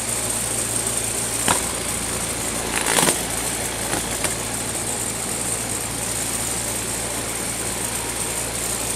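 Box-fan electric motor spinning a sharpened sheet-metal mower blade, a steady humming whir. Two sharp hits come about a second and a half and three seconds in as the blade strikes toilet paper and throws it out of the chute.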